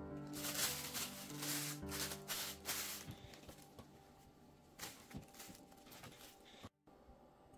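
Plastic cling film crinkling and rustling as it is stretched and pressed over a board of dough balls, loudest in the first few seconds, then softer rustling of a cloth towel being laid on top. Quiet background music runs underneath.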